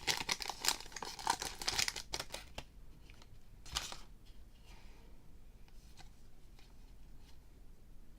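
Foil wrapper of a pack of baseball cards crinkling and tearing open, for about the first two and a half seconds. After that, one short rustle and a few faint clicks of the cards being handled.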